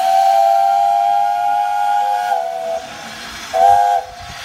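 Steam whistle blowing a long blast of several notes at once over a hiss of steam, sagging in pitch as it dies away, then one short blast.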